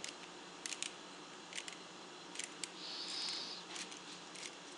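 Small sharp metal clicks, mostly in quick pairs, with a brief scrape about three seconds in, as the flint-spring screw on the bottom of a Zippo lighter insert is turned out.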